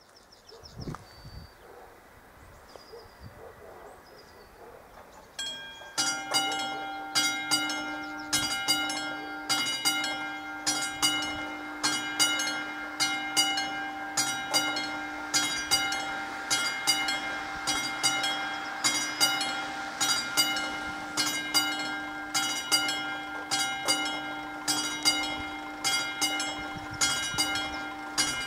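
Classic electric bell of a Czech VÚD level-crossing warning signal. It starts ringing about five seconds in and keeps striking in a steady rhythm, a little more than once a second, as the crossing is activated for an approaching train. Before it there is only a faint hiss of light rain.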